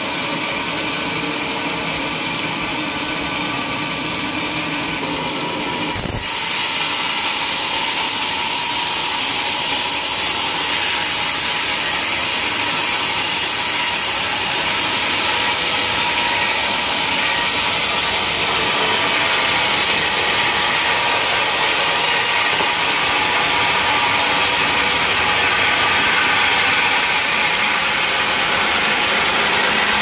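Band sawmill running; about six seconds in the blade bites into a large log, and from there a steady, louder hiss of the blade ripping a slab lengthwise through the wood.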